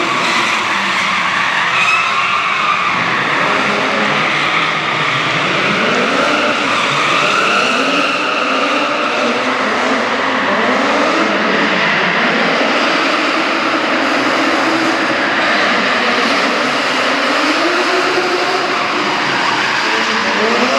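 Drift car's engine revving up and down again and again as it slides through the corners, with its tyres screeching throughout.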